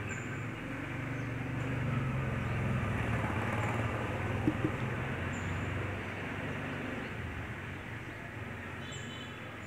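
Low rumble of a passing motor vehicle that grows louder over the first couple of seconds and then fades, with two sharp clicks about four and a half seconds in.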